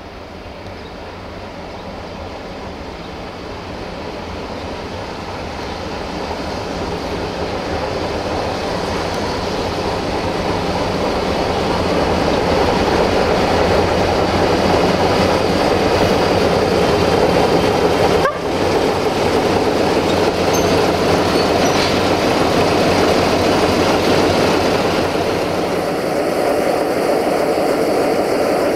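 LDH1250 diesel-hydraulic shunting locomotive approaching and passing, its diesel engine getting steadily louder over about the first twelve seconds and then running loud and steady.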